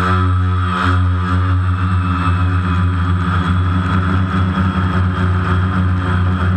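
Multicopter's electric motors and propellers running steadily in flight, heard close up from the camera on the craft: a steady hum with a higher whine above it, wavering slightly in pitch.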